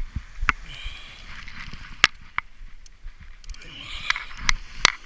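Sharp, irregular knocks and clicks of gear on a fishing boat, about five in a few seconds, over a steady hiss of wind and water.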